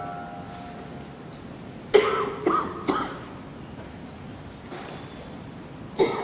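A person coughing: three sharp coughs in quick succession about two seconds in, and another near the end.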